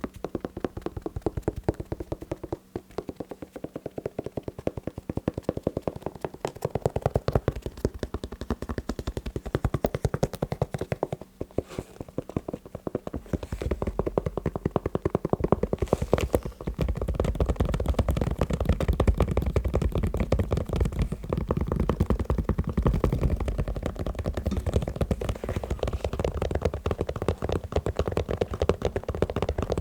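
Rapid tapping on a shoe, many quick taps a second. About halfway through, the taps turn deeper and heavier.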